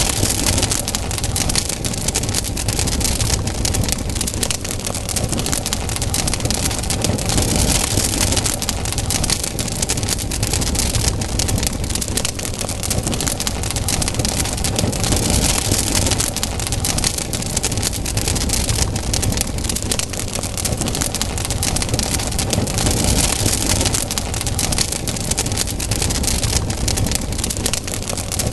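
Campfire burning, wood crackling and popping densely and steadily, with a rushing hiss that swells and fades several times.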